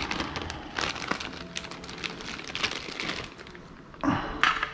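Plastic wrapping crinkling and crackling in irregular bursts as a thick steak is handled, with a short louder sound just after 4 seconds.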